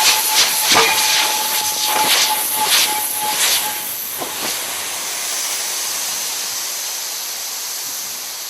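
Compressed gas rushing out of a gas cylinder whose valve has broken off, with no excess flow valve to check the flow: a loud, steady hiss. Scattered knocks and a thin whistling tone run through the first three or four seconds, then the hiss goes on alone.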